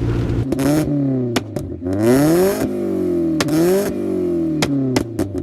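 Straight-piped Kia Rio engine revved twice, its pitch climbing and falling each time, loud at the top of each rev. Sharp exhaust pops and bangs crack out during the revs and as they drop near the end.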